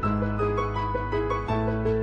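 Background music: a keyboard melody of short repeated notes over held low notes that change about every second and a half.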